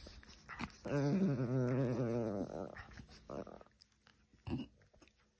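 Small dogs play-fighting: one gives a growl with a wavering pitch, lasting about a second and a half from about a second in. A couple of short clicks follow.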